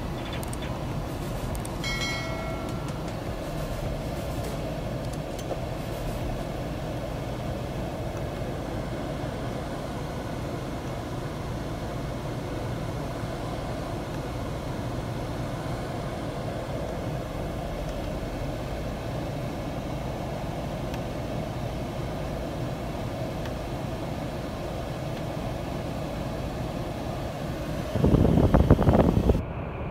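Steady cabin hum of the Perodua Alza's idling engine and air-conditioning fan, with a short electronic beep about two seconds in as the climate-control panel is worked. Near the end, a loud rumbling noise lasts about a second and a half.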